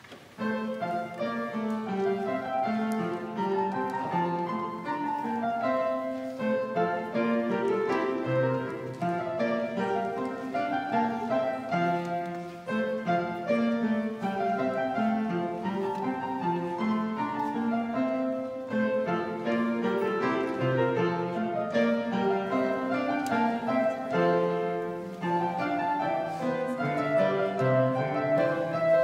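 Upright piano playing chords, starting about half a second in.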